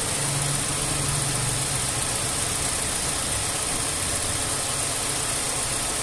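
Volkswagen Vento engine idling with its electric radiator cooling fan running, a steady hum and rush of air. The fan has switched on at about 95 degrees and is working as it should.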